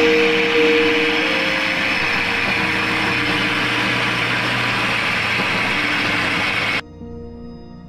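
Electric mixer grinder running steadily at speed, its steel jar grinding soaked rice into a wet batter for sel roti; the motor cuts off abruptly near the end. Soft background music plays under it.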